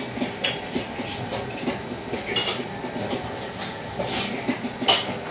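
Handling noise from piping cake batter out of a plastic piping bag into paper cups on a metal steamer tray: a few short, sharp rustles and light clinks, about half a second, two and a half, four and five seconds in, over a steady rattly background rumble.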